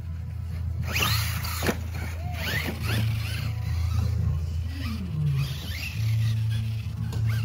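Axial Son-Uva Digger RC monster truck driving on grass, its electric motor and geartrain whining up and down in pitch with each burst of throttle, over a steady low rumble.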